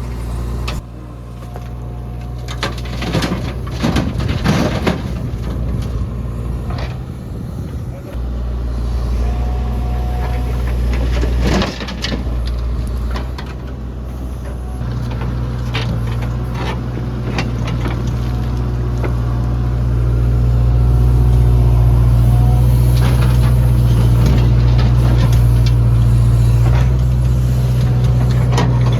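JCB 3DX backhoe loader's diesel engine running steadily, getting louder about two-thirds of the way through, with scattered knocks and clanks.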